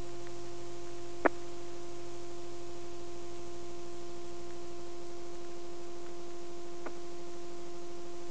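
Steady electrical hum with a faint hiss, with one sharp click about a second in and a fainter click near the end.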